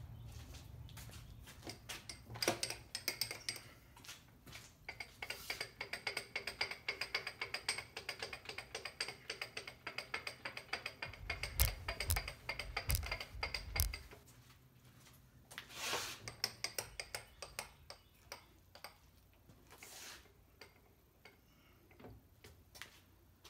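Carbide end mill on a milling machine cutting across a plasma-cut plate: a dense, rapid ticking with a steady high ringing whine from about two seconds in until about fourteen seconds, with a few heavy low thumps near the end of the cut. After that it drops away to scattered knocks.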